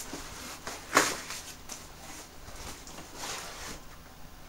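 Cardboard shipping box being forced open by hand: a sharp rip about a second in, then cardboard rustling and scraping as a tightly packed boxed figure set is worked out of it.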